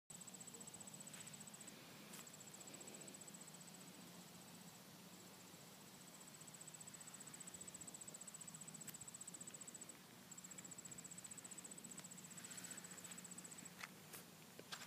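Faint, high-pitched cricket trill, running steadily in long stretches of several seconds with brief pauses between them. A few soft clicks come near the end.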